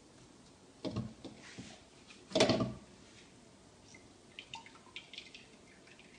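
Grated onion being squeezed by hand to press out its juice, which drips into a small bowl: a short wet sound about a second in, a louder one about two and a half seconds in, then a few faint drips.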